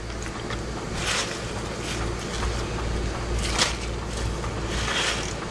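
Cut collard green leaves rustling and swishing as handfuls are dropped into a pot of hot broth, three soft swells of it, over a steady low hum.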